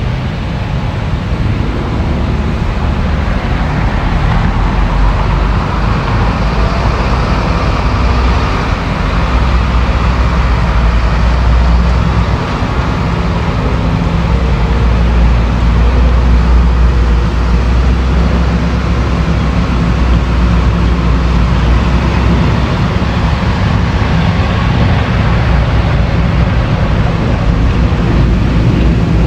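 Caterpillar hydraulic excavator's diesel engine running steadily with a deep low rumble that swells at times as the machine works.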